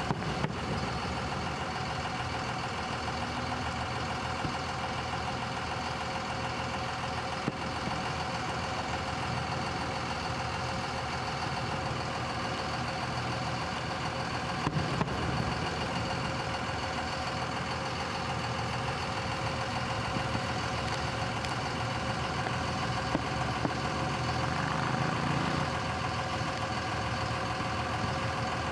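A vehicle engine idling steadily, with a couple of faint clicks.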